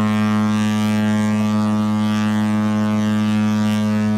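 A cruise ship's horn sounding one long, loud, steady blast on a deep tone, the departure signal as the ship casts off.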